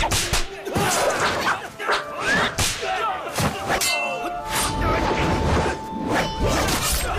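Martial-arts fight sound effects: sword blades clanging, whooshes of swung weapons and blows landing in quick succession, with fighters' short cries, over score music. A ringing tone holds for about two seconds in the middle.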